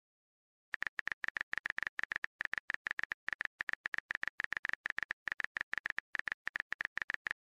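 Phone touchscreen keyboard clicks as a text message is typed, a rapid run of short taps at about ten a second, starting just under a second in.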